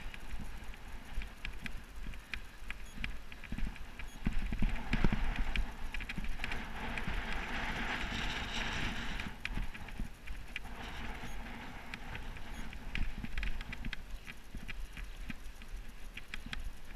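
Riding a road bike, heard through a helmet-mounted GoPro's microphone: a low wind rumble with road hiss that swells for a few seconds around the middle, and a stream of irregular sharp clicks and rattles.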